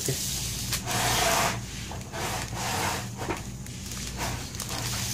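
MacBook Air's aluminium body being handled and turned over on the workbench: rubbing and scraping, coming in several bursts about a second long.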